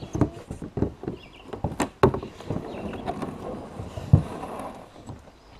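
Hollow knocks and thumps on a plastic sit-on-top kayak as its seat and gear are handled and the hull is pushed off, the loudest thump a little after four seconds. A rushing scrape runs under them from about two seconds in as the hull moves over the gravel shallows.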